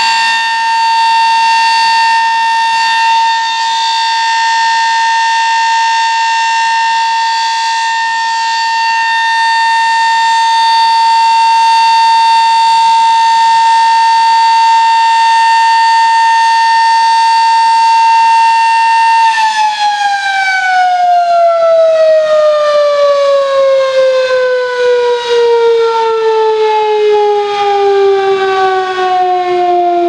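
Sterling M10 civil defense siren sounding a loud steady tone during a siren test. About two-thirds of the way through, the steady tone ends and the siren winds down, its pitch falling smoothly as the rotors slow.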